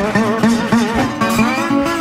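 Acoustic resonator guitar played as a solo blues, with a repeated low bass note under treble notes that waver and glide in pitch.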